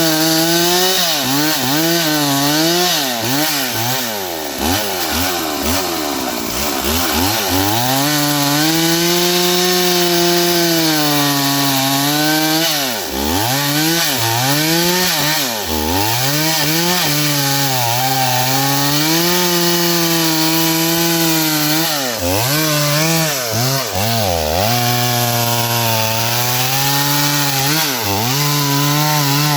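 Stihl 038 AV two-stroke chainsaw running, its engine revved up and down again and again with the throttle, holding high revs for a few seconds at a time between dips.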